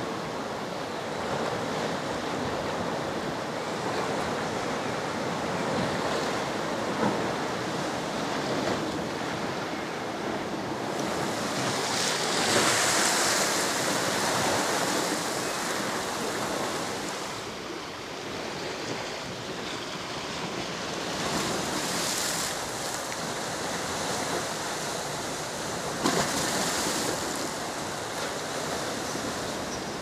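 Small waves breaking and washing up over a pebble beach: a steady wash of surf with several bigger waves surging in with a louder hiss, the largest about a third of the way through. There are a couple of brief sharp clicks.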